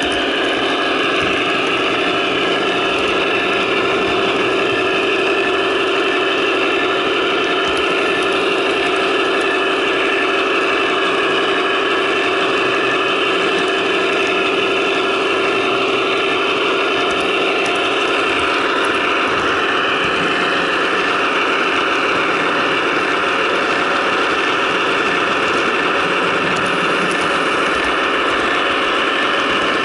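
Onboard sound system of a Broadway Limited Imports HO-scale GE AC6000CW model locomotive playing a sixteen-cylinder turbo diesel engine, running steadily through its small speakers.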